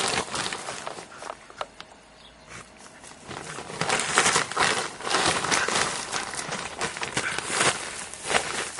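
A dog digging and rooting through a pile of straw and plastic sheeting: straw rustling and crackling, with plastic crinkling. It dies down for a moment about two seconds in, then grows louder again from about three and a half seconds in.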